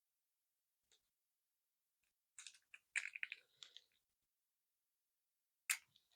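Small hard plastic clicks and rattles as a Beyblade's armor tip is fitted onto its driver: a faint tick about a second in, a cluster of clicks around the middle, and one sharp click near the end.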